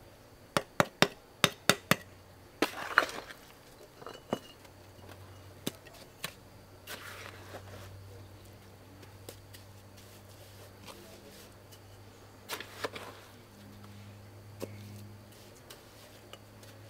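A tool striking wood: a quick run of about seven sharp knocks in the first two seconds, then a few scattered knocks and handling noises, over a faint low hum.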